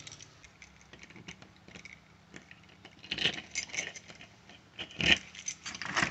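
Metal door hardware being handled: a few faint clicks, then from about three seconds in sharper metallic clicks and rattles as a hand works a round doorknob.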